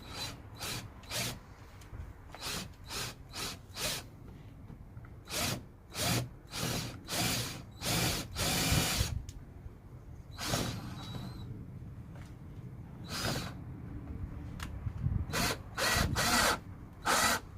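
Power drill run in a series of short trigger bursts, one held for about a second near the middle, with a brief lull after it.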